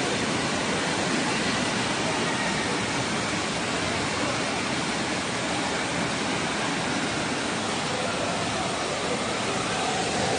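Floodwater rushing down a street in a fast, churning torrent: a steady, loud wash of moving water.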